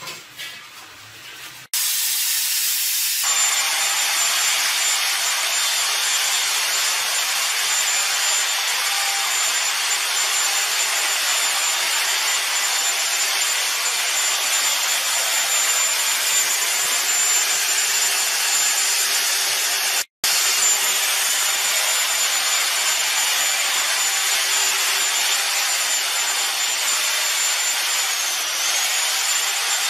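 Handheld electric paddle mixer running steadily with a high whine, its paddle stirring a bucket of grey tile mortar smooth without lumps. It starts about two seconds in and drops out for an instant about two-thirds of the way through.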